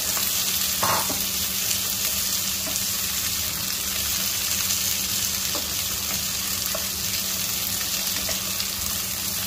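Green chillies sizzling as they fry in hot oil in a steel pan, stirred with a wooden spatula that scrapes and taps the pan now and then.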